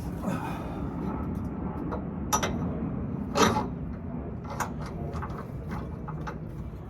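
Metal parts and hand tools clinking while rear suspension hardware is handled, with scattered light clicks, a sharp click about two seconds in and a louder clank a second later, over a steady low background rumble.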